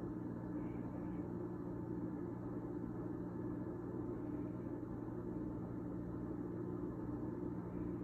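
Steady low mechanical hum with a few held low tones, unchanging throughout.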